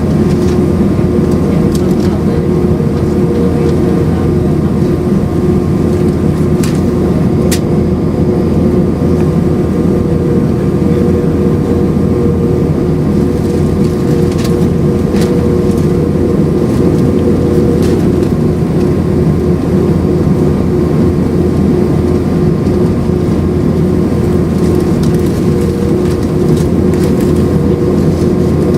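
Cabin noise inside an Airbus A319: its IAE V2500 jet engines and the rush of air, a steady loud drone with a constant hum, and a few faint clicks.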